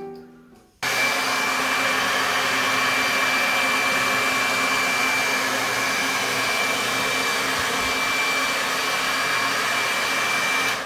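Handheld hair dryer running: a steady rush of blown air with a thin, steady high whine. It comes on abruptly about a second in and cuts off near the end.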